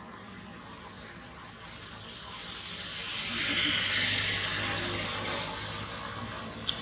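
A vehicle passing by: a rushing noise swells to a peak about halfway through and fades away again, with a sharp click near the end.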